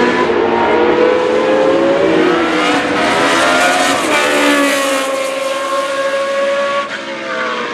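Formula One car engine running at high revs on track, its pitch climbing and then dropping sharply about four seconds in, as at a gear change.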